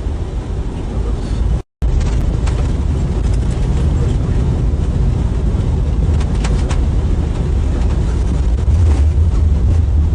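Steady low rumble of an Airbus airliner's landing rollout heard from the cockpit just after touchdown: engine and runway noise with a few faint ticks. It cuts out for an instant about two seconds in.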